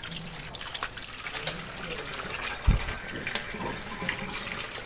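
Tap water running over thin slices of salted green papaya as they are rinsed to wash off the salt, with small splashes throughout and a single dull knock a little before the three-second mark.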